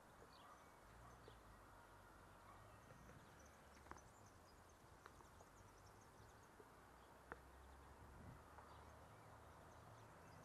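Near silence: faint outdoor background with a low hum and two soft clicks, about four seconds in and again near seven seconds.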